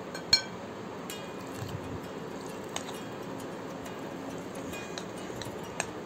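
A light clink of a utensil against a glass mixing bowl about a third of a second in, then a few fainter clinks over quiet room tone.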